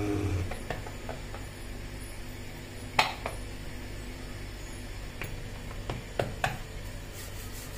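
Light knocks and clinks of kitchenware on a stone kitchen counter: a handful of short sharp taps, the loudest about three seconds in and two close together a little after six seconds in.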